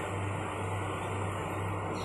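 Steady low hum with an even hiss: room tone.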